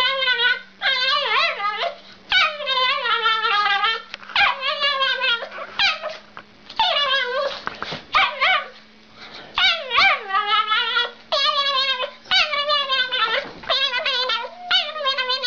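A small curly-haired dog howling in a run of long, wavering, high-pitched calls, about a dozen, one after another with short pauses between.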